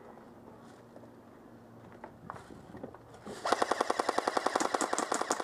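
Airsoft electric rifle (AEG) firing a full-auto burst: a rapid, even stream of shots lasting about two seconds, starting about three and a half seconds in.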